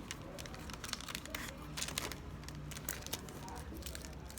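Packaging being handled: irregular crinkling and rustling of paper or plastic with short sharp clicks.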